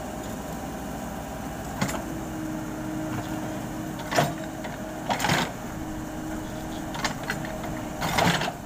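Komatsu hydraulic excavator running steadily while its bucket digs into soil and rubble, with the bucket teeth scraping and knocking on stones about five times; the loudest scrapes come a little after four seconds, around five seconds and near the end.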